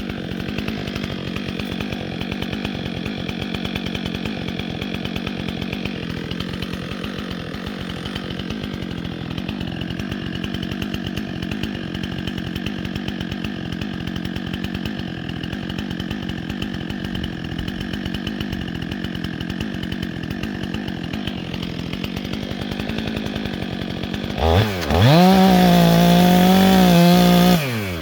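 Chainsaw idling steadily, then revved hard near the end for about three seconds, its pitch rising, dipping and holding before dropping back to idle.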